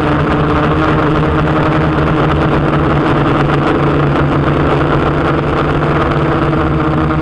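A DJI Flamewheel 450 quadcopter's brushless motors and propellers running steadily in flight: a loud, even buzz with a steady hum, picked up by a camera mounted on the drone's frame.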